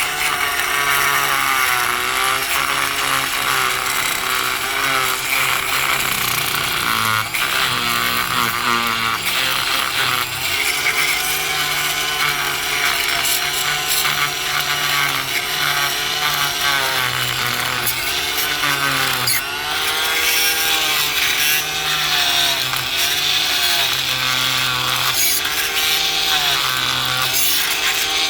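Oscillating multi-tool running with its blade grinding dried concrete off a putty knife. The buzz is steady, with its pitch repeatedly dipping and recovering as the blade is pressed into the crust.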